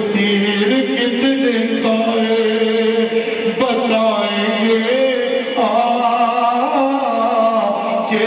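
A man chanting a noha, the Shia lament, in a slow melody of long held notes that step up and down in pitch.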